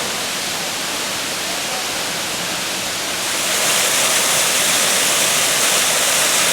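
Waterfall rushing: a steady, loud hiss of falling water that grows louder and brighter about three seconds in.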